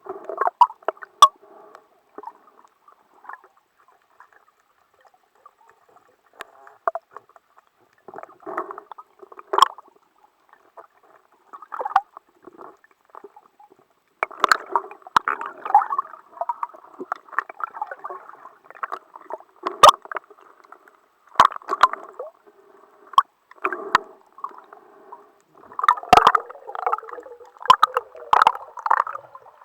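Muffled underwater gurgling and sloshing water in irregular bursts with short pauses, with scattered sharp clicks.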